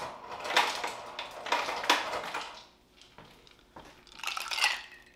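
Ice cubes clattering as they drop from a refrigerator door's ice dispenser for the first couple of seconds. About four seconds in there is another short rattle of ice as the cubes go into a glass.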